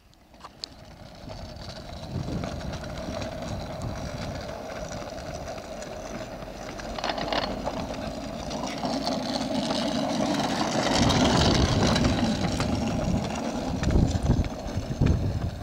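Push car's small wheels rolling on asphalt as children push it at a run, the noise building as it comes closer and loudest near the end.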